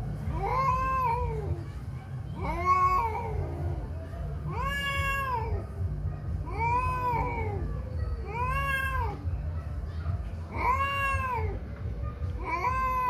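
Two male cats in a territorial standoff, yowling: seven drawn-out calls about two seconds apart, each rising and then falling in pitch.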